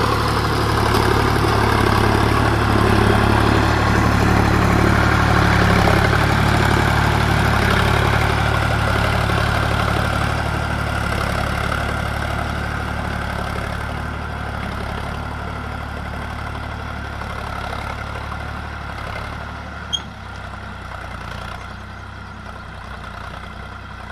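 Sonalika DI 745 tractor's three-cylinder diesel engine running steadily under load as it pulls a disc plough through the soil, loudest at first and fading gradually as the tractor moves away. A short click about twenty seconds in.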